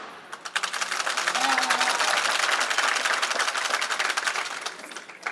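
Spectators in a hall clapping: a dense patter of hand claps that fades near the end.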